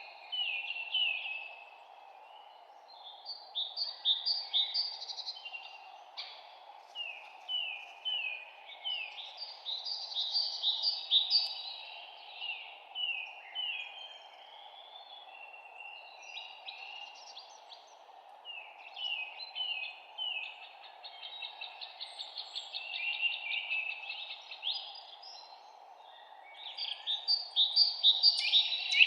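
Songbirds chirping and singing in repeated short phrases that come and go, loudest near the end, over a steady even background noise.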